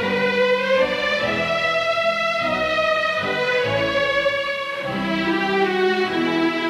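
Orchestral strings playing long held notes, violins carrying the line over lower strings, changing note a few times.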